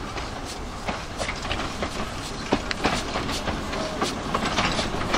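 Narrow-gauge steam train rolling slowly past, its wheels clicking irregularly over rail joints and points over a steady rumble.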